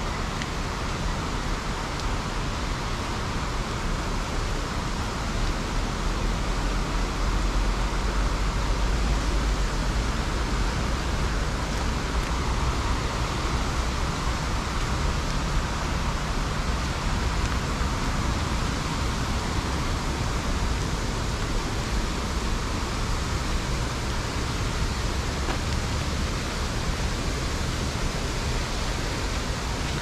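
Mountain stream running full after heavy rain, a steady rushing wash of water, with a low rumble swelling for several seconds about a fifth of the way in.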